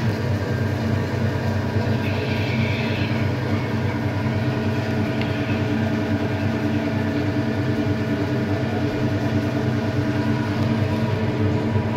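Hydraulic oil press machine running with a steady mechanical hum from its motor-driven pump.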